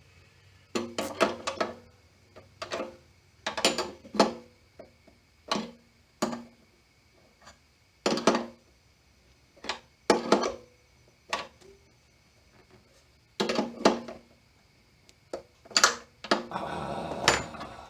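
Metal clinks and knocks while a petcock is worked into a steel motorcycle gas tank: about a dozen scattered hits, some ringing briefly, with a longer, rougher sound near the end.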